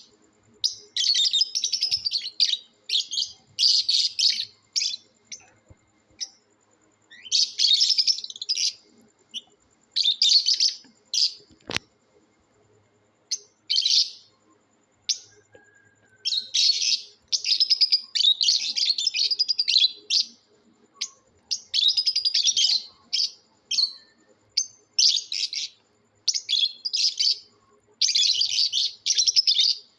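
Lovebirds chirping in rapid, shrill bursts of a second or two, with short pauses between them. There is a single sharp click about twelve seconds in.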